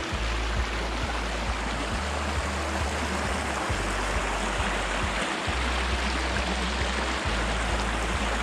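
Water rushing steadily over a small dam, a continuous loud hiss.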